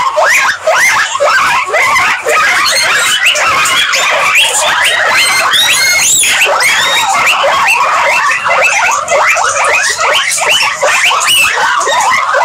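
A large herd of guinea pigs squeaking all at once: a dense, unbroken chorus of short rising and falling squeals and whistles.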